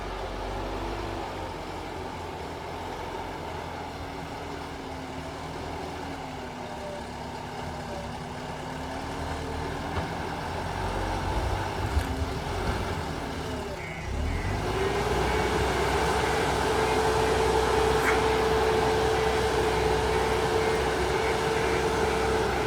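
JCB 3DX Super backhoe loader's diesel engine running at moderate revs with its pitch wandering. About two-thirds of the way in it dips briefly, then revs up to a steady, higher and louder drone. A few sharp clanks come in between.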